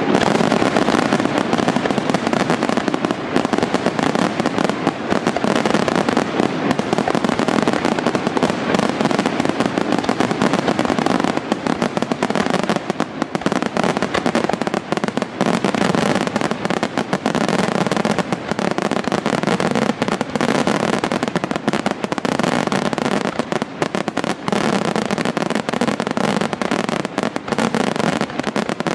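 Aerial fireworks display: shells bursting in a dense, unbroken barrage of rapid overlapping pops and bangs.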